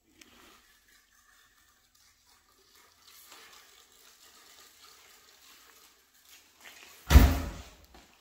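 Faint rustling and crackling, then one loud, sudden thump about seven seconds in that dies away within a second.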